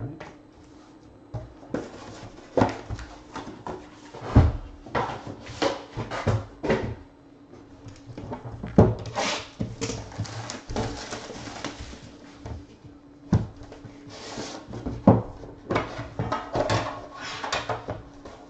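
Cardboard trading-card boxes and cards being handled on a table. There is an irregular run of taps and knocks with sliding, scraping rustles, and a few louder knocks as boxes are set down and a lid is lifted.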